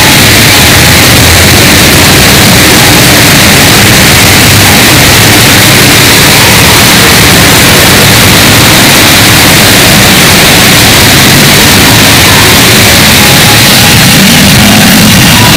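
Falling rain, a steady hiss, boosted so loud that it clips into harsh, distorted static-like noise.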